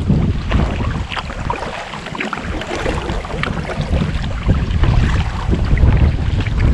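Wind buffeting the microphone in uneven gusts, stronger in the second half, over the small splashes and drips of a kayak paddle working through calm water.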